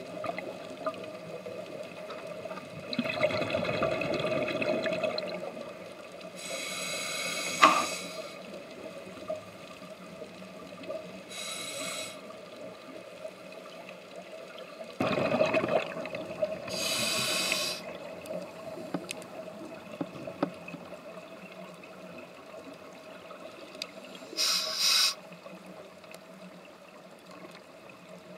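Scuba diver breathing through a regulator, heard underwater: a hiss with each inhalation, about four times, and two longer gurgling rushes of exhaled bubbles, over a faint steady hum.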